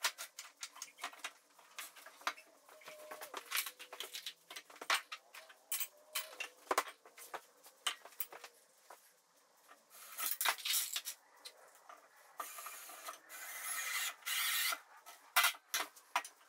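Workshop handling noise: scattered knocks and clicks of 2x4 boards and steel gate corner brackets being moved and set on a table saw top, with stretches of rubbing and rustling in the second half.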